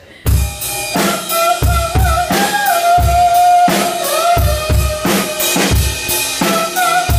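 Live rock drum kit coming in just after the start and playing a steady beat, bass drum about one and a half times a second with snare and cymbal hits, under a held, wavering melody line.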